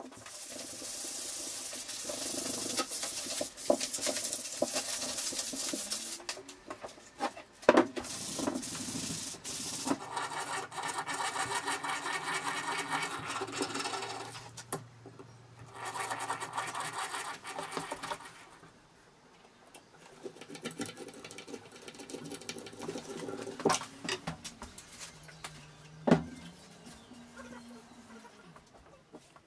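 An electric sander running against oak for the first several seconds. Later a power drill whines as it bores into the wooden frame, and near the end come quieter knocks from the wood being handled.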